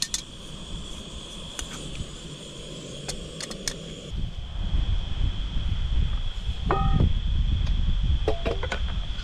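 Crickets trilling steadily, with sharp metal clinks of a utensil against an aluminium cooking pot in the first few seconds. After about four seconds a low rumble joins, and near the end come two short ringing clinks of camp dishes being handled.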